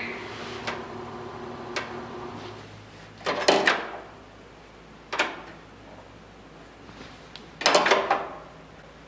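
Sheet-metal car body and a black trim piece being handled and pushed into place by hand, giving scattered clicks and three bursts of clattering and scraping, the last near the end.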